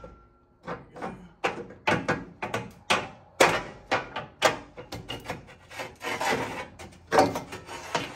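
Steel transmission crossmember of a 1988–98 Chevy C1500 being wrestled out of the frame: a run of metal-on-metal scrapes and knocks, about two a second, as it is rocked free.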